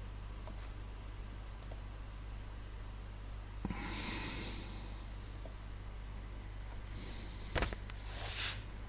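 Steady low hum with a few faint clicks, a soft rustling swell about four seconds in, and a sharp knock followed by a short hiss near the end.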